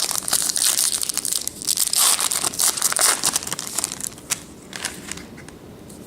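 Foil trading-card pack wrapper being torn open and crinkled: a dense, crisp crackle for about four seconds that thins out near the end.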